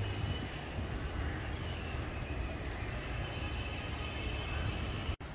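Steady outdoor background noise, a low rumble with no distinct events, briefly cut off near the end.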